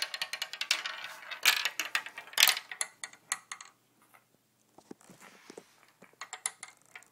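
Marbles rolling and clacking down a toy marble run tower, a dense run of rapid clicks and rattles for about three and a half seconds, then a short lull, then scattered lighter clicks.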